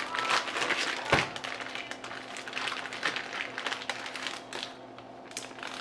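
Plastic zip-top bag crinkling and rustling as hands press and turn marinated chicken breasts inside it, with one knock on the wooden cutting board about a second in.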